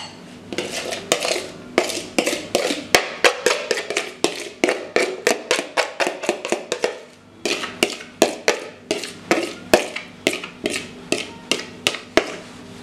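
A kitchen utensil knocking and scraping against a plate as sliced onion is pushed off it into a frying pan. It makes a long run of sharp clicks, about three a second, with a short break about seven seconds in.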